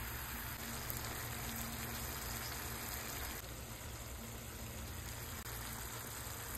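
Tomato sauce sizzling and bubbling in a nonstick frying pan, a steady hiss that drops a little about three and a half seconds in.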